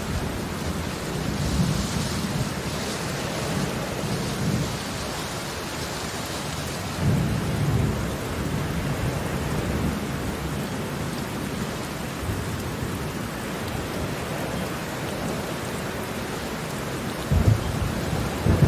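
Heavy rain falling steadily, with several low rumbles of thunder, the strongest about seven seconds in and near the end.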